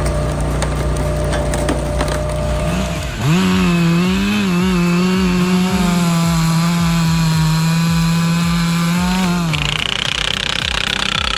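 Stihl MS 462 chainsaw revving up sharply about three seconds in and held at full throttle for about six seconds, cutting wood. It drops off near the end. Before that there is a steady low hum with scattered cracks.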